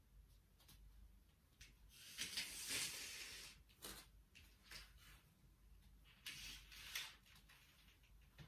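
Near silence: faint room tone, with a soft brief rustle about two seconds in and a few faint light clicks later.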